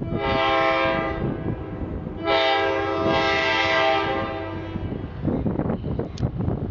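EMD F40PH-2CAT diesel locomotive sounding its multi-note air horn, a short blast and then a longer one, as it approaches a road grade crossing. A rough low rumble runs underneath.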